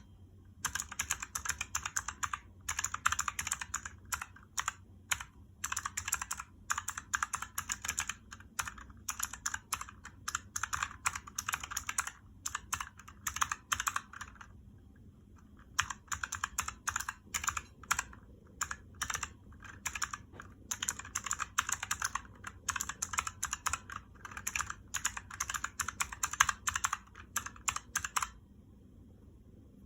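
Razer keyboard with clicky purple switches being typed on in quick, dense runs of keystrokes. The typing pauses for about a second and a half midway and stops shortly before the end.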